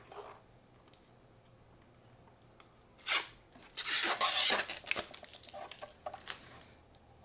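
Protective plastic film being peeled off the glossy case of a media hub: a short rip about three seconds in, then a longer tearing peel lasting about a second, followed by a few light handling noises.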